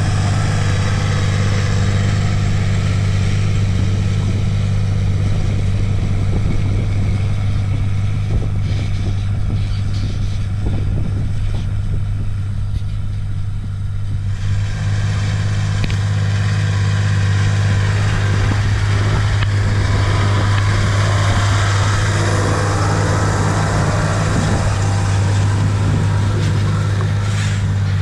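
John Deere 8100 tractor's six-cylinder turbodiesel running steadily under load as it pulls an offset disc harrow through the soil, a constant low drone. About halfway a brighter hiss joins in.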